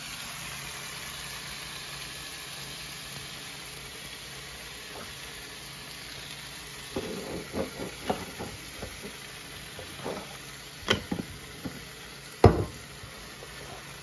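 Turkey breast slices frying on a hot electric griddle: a steady sizzle. About halfway through, a run of light clicks and knocks starts, the loudest two near the end.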